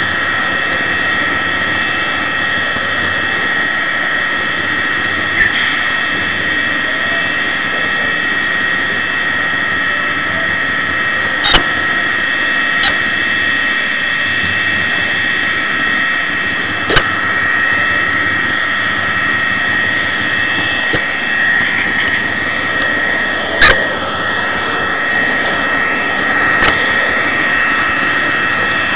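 Model Class 66 diesel locomotive running with its LokSound decoder's engine sound, heard up close from a small camera car together with a steady high whine of the running gear. A handful of sharp clicks break in along the way.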